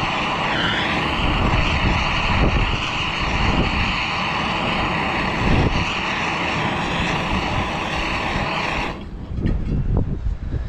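Handheld gas torch burning with a steady hiss while heating the inducer motor's blower wheel to loosen it on the shaft. The torch cuts off suddenly about nine seconds in, leaving wind buffeting the microphone.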